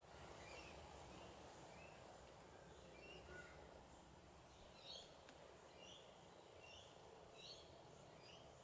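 Near silence, with faint short bird chirps repeating about once a second.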